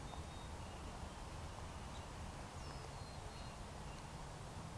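Steady outdoor ambience, a low rumble and hiss, with a few faint high bird chirps, some sweeping downward, in the middle of the stretch.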